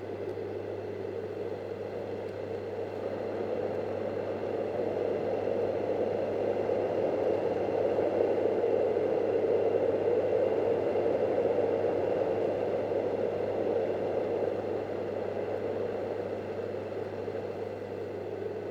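Yogasleep Dohm Uno white noise machine, its real fan running: a steady, fairly low rushing whoosh with a faint steady motor hum underneath. The whoosh swells gradually to its loudest mid-way, then eases back a little toward the end.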